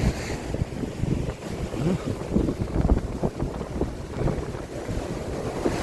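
Wind buffeting the microphone, a gusty low rumble over the wash of sea surf on the beach.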